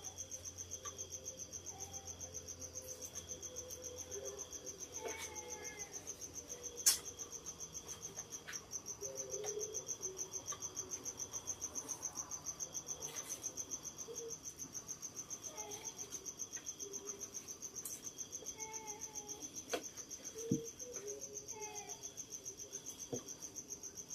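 Insects chirping in a steady, fast-pulsing high trill, with a few sharp clicks.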